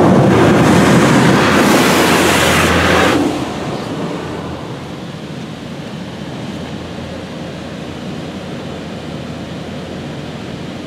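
High-pressure water spray from a PDQ LaserWash 4000 touchless car wash hitting the car, heard from inside the cabin: loud for about three seconds, then dropping to a quieter, steady spray as the arm moves on.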